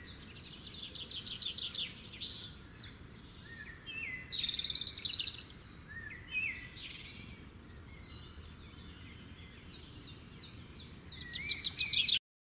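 Several birds chirping and twittering, with quick trills and short sliding whistled notes over a low steady background hiss. The sound cuts off abruptly just before the end.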